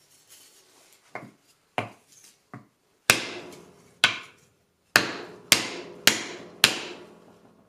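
Wooden mallet striking a wood block held on the end of a mini mill's R8 spindle: a few lighter knocks, then six hard blows about half a second to a second apart, each ringing briefly. The spindle does not budge under the mallet; it needs a shop press.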